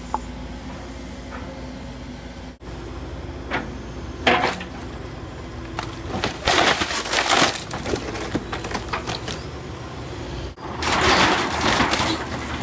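Wood and debris from a mobile home being torn apart, breaking and splintering in several sudden crashes, the longest near the middle and near the end. A steady low engine hum runs underneath.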